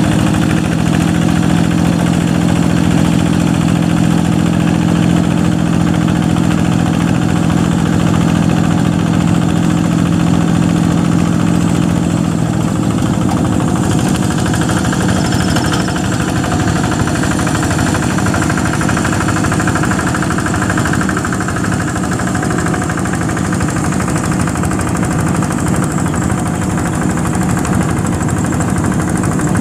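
Single-cylinder diesel engine of a Yanmar-engined G1000 two-wheel hand tractor running steadily under load while plowing wet paddy mud. Its steady low note changes about twelve seconds in.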